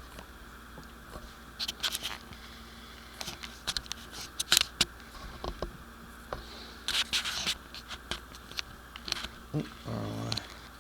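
Irregular small clicks, taps and scrapes of bolts and a plastic cover being handled and fitted by hand, with a brief mutter near the end.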